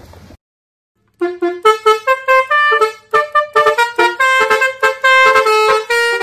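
Music: a quick tune of short, honking, horn-like notes that starts about a second in after a brief silence. Just before the silence, a little wind and water noise cuts off.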